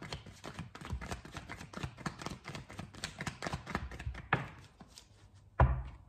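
A deck of tarot cards shuffled by hand: a quick run of soft flicking clicks for about four seconds, then two knocks, the louder one near the end, as the deck or a card is knocked against the table.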